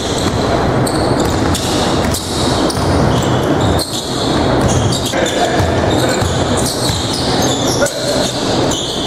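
Basketball game on a hardwood court in an echoing gym: the ball bouncing and players moving, with indistinct voices. The sound breaks off and restarts a few times.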